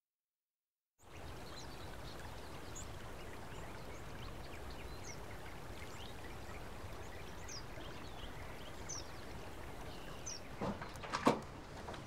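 Rural outdoor ambience starting about a second in: a steady background hiss with birds chirping briefly now and then. Near the end, a few sharp clicks and knocks.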